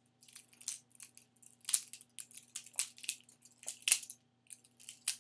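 Balisong (butterfly knife) being flipped: its metal handles and blade click and clack irregularly against each other, with two louder clacks, about two seconds in and near four seconds in. A faint steady hum runs underneath.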